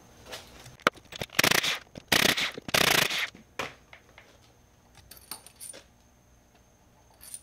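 Small steel Allen bolts being handled on a workbench: three loud scraping rasps between about one and three seconds in, then a few light metallic clinks.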